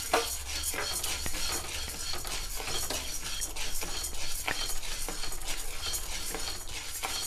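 Spatula stirring dry toor dal around a nonstick kadai: the dry split lentils rattle and slide, and the spatula scrapes the pan with many small irregular clicks. The dal is being dry-roasted with no oil, so there is little sizzle.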